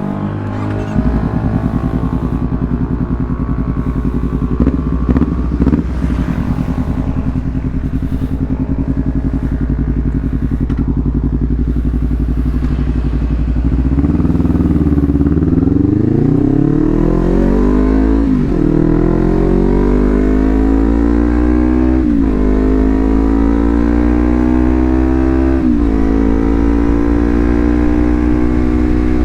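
Honda CBR250RR engine running through a Leovince GP Corsa full-system aftermarket exhaust, ticking over steadily, then revved up at a quarter to half throttle about halfway through and held at higher revs, with brief throttle snaps where the pitch dips and recovers three times near the end.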